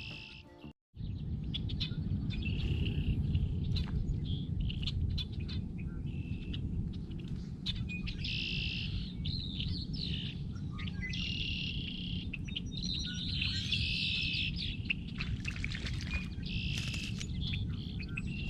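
Several birds singing and chirping in repeated short phrases over a steady low rumble. The sound cuts out completely for a moment just under a second in.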